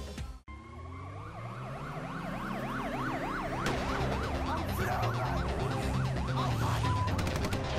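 An emergency-vehicle siren yelping, its pitch sweeping rapidly up and down a few times a second and growing gradually louder, over background music.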